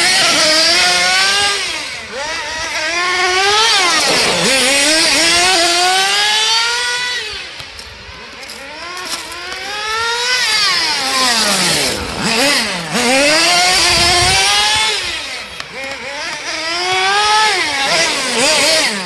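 Kyosho Nitro Tracker RC truck's small two-stroke nitro glow engine revving hard, its pitch climbing and dropping back again and again as the truck is driven.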